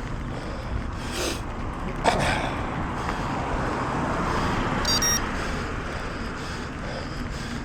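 Wind and road noise while riding a bicycle, with a vehicle passing that swells and fades about three to five seconds in. A sharp click comes about two seconds in, and a brief high-pitched beep about five seconds in.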